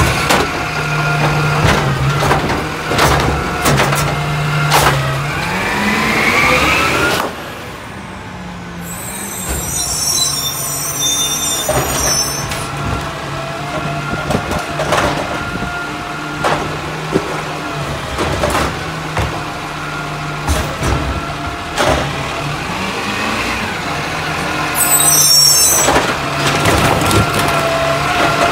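Scorpion automated side-loader garbage truck working: the engine runs with clanks as the arm tips a cart into the hopper, and a rising whine from the hydraulics about six seconds in. Then the truck drives up with its engine running, and air brakes hiss twice.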